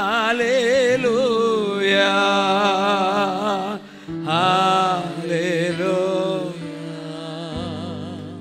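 Worship singing: 'Hallelujah' sung slowly and drawn out with a wide, wavering vibrato over a steady held chord. The voice comes in two long phrases with a short break about four seconds in.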